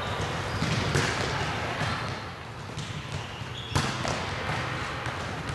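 Volleyballs being struck and bouncing on a hard gym floor during hitting drills. There is a sharp slap of a ball about a second in and a louder one just before four seconds in, as the hitter jumps to attack.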